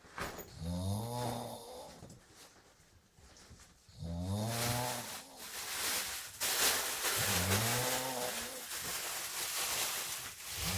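A person snoring: three pitched, rasping snores about three seconds apart, each rising in pitch, with a breathy hiss filling the gaps from the middle on.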